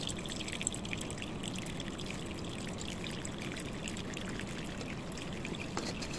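Whey pouring and trickling as ladlefuls of curds and whey go into a paper-towel-lined colander and drain through into the steel bowl below. The sound is a steady run of liquid with a few light clicks.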